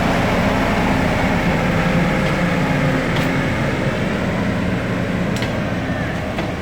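Diesel train running: a steady, low engine rumble that slowly fades, with a few faint sharp ticks.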